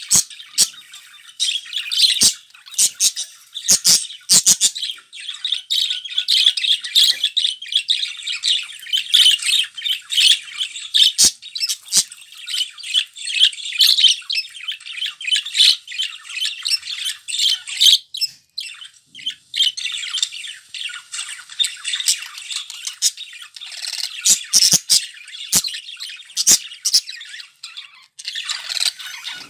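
Several budgerigars chattering and warbling continuously, a dense mix of chirps, squawks and sharp clicks, with a brief lull about two-thirds of the way through.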